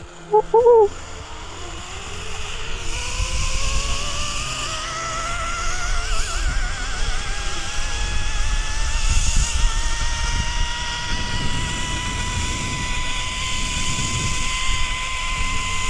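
Zipline trolley pulleys running along the steel cable: a whine that climbs steadily in pitch for about ten seconds as the ride gathers speed, then holds at top speed, over low wind rumble on the microphone. A short voice cry comes right at the start.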